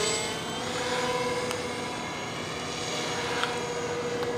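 Electric motors and propellers of a radio-controlled model plane in flight, giving a steady whine that gets quieter about half a second in as the plane draws away.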